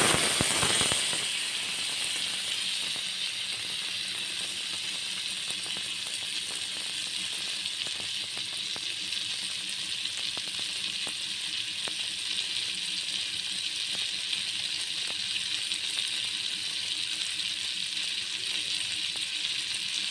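A tablespoon of butter sizzling as it melts in a hot kadai. The sizzle is loudest at first and settles within about two seconds into a steady sizzle with faint crackles.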